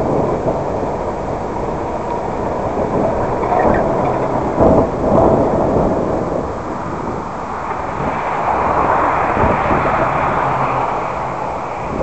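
Car driving, heard from inside the cabin: a steady rumble of tyres and engine, with a couple of thumps about four and a half seconds in and the noise swelling a little near the end.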